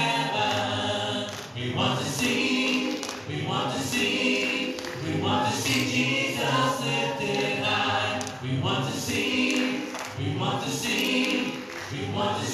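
A group of voices singing a worship chorus, with long held sung notes and little else behind them.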